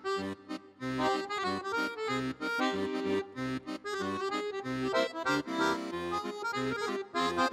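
Accordion music, with a steady beat of bass notes under a quick melody.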